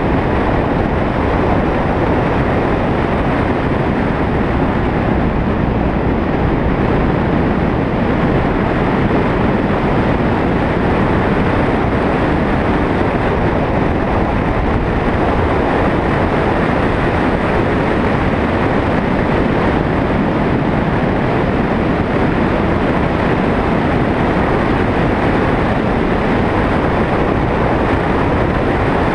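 Steady road and wind noise of a moving vehicle, even in level, with no distinct engine note standing out.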